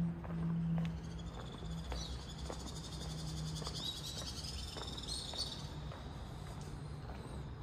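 Footsteps on cobblestones, with a high, fast trill from about a second in until near the end.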